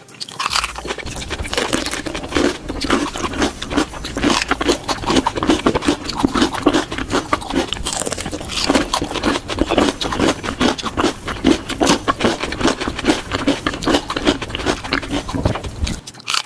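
Raw vegetables, a green bell pepper and a cauliflower, being bitten and chewed, with a rapid, irregular run of crisp crunches and wet chewing.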